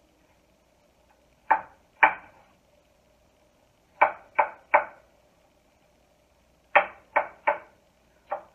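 Knife chopping peeled apple on a wooden cutting board: nine sharp knocks in groups of two, three and three, then one more near the end.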